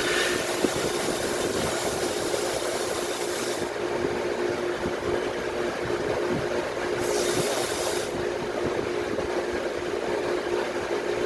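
Sandblasting equipment running with a steady hum, while compressed-air abrasive blast hisses, stops about four seconds in, then blasts again for about a second near the seven-second mark.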